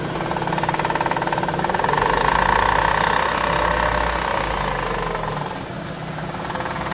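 Chevrolet Aveo engine idling with a fast, even rattling noise, a little louder in the middle. The noise comes from a faulty pulley on the accessory drive belt.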